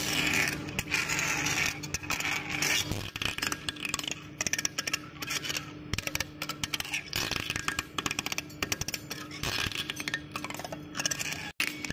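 Lathe cutting tool turning the surface of a large rotating metal cylinder: a continuous scraping hiss with dense crackling clicks, over a faint steady machine hum.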